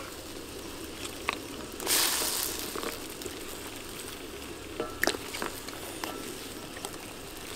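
Pot of fish sour soup broth boiling with a steady bubbling hiss. There is a loud splash about two seconds in, and a few light knocks later.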